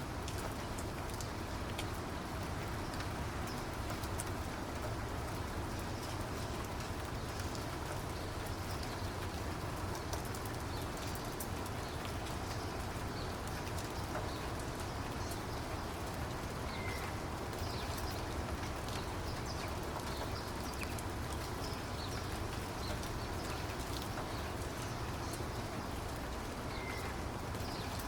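Steady rainfall, an even hiss with many individual raindrops ticking, and a couple of faint short chirps about two-thirds of the way through and again near the end.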